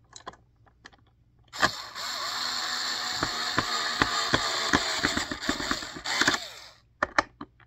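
A cheap cordless drill driving a screw: the motor whirs for about five seconds, and through the second half its clutch ratchets with several clicks a second. The clicking means the screw is fully seated and the clutch is slipping rather than stripping the screw or thread. A few single clicks come near the start and near the end.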